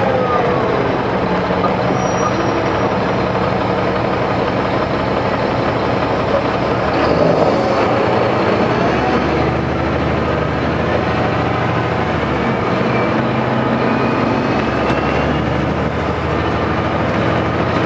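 A NABI 416.15 transit bus's Caterpillar C13 ACERT diesel engine idling steadily while the bus stands still.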